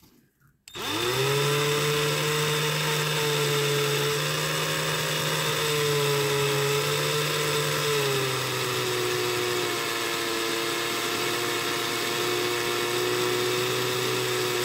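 Cordless drill spinning a toy car's axle held in sandpaper, starting up under a second in and running steadily. Its motor pitch drops a little about eight seconds in and rises again near the end.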